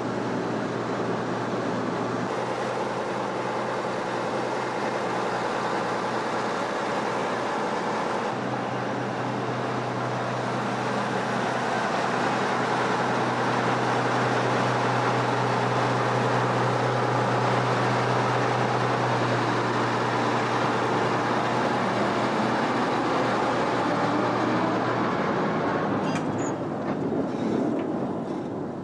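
Diesel engine of an LKM Ns4 narrow-gauge shunting locomotive running with a steady low drone, under load as it shunts. The engine note rises and gets louder about a third of the way in and drops away near the end, followed by a few sharp clicks.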